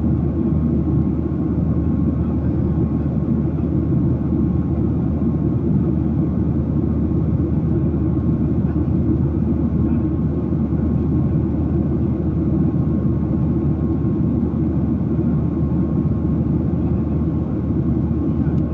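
Steady airliner cabin noise in flight, the engine and airflow rumble heard from inside the passenger cabin, with a faint steady whine above it.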